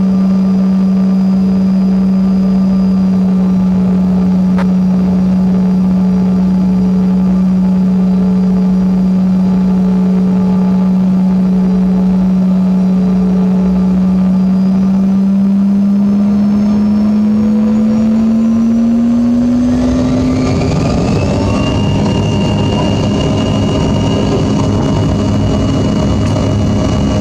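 Cabin sound of a Bombardier CRJ-200's rear-mounted GE CF34 turbofans: a steady idle drone with a low hum while taxiing. About two-thirds of the way through, the engines spool up for takeoff: a whine rises in pitch and the noise grows fuller.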